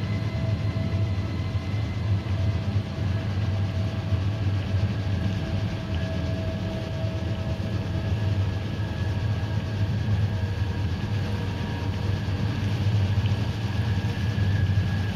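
Steady low rumbling drone with faint held high tones above it, unchanging in loudness throughout.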